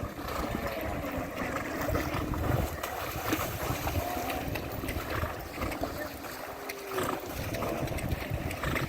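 Deep creek water splashing and sloshing as horses swim across it, with wind rumbling on the microphone. A few short calls are heard faintly.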